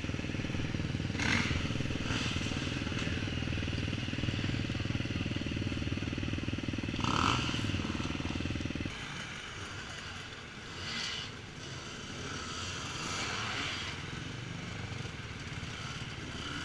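Dirt bike engines running at idle close by; the nearest, steady engine sound cuts off abruptly about nine seconds in, leaving the fainter sound of other bikes running.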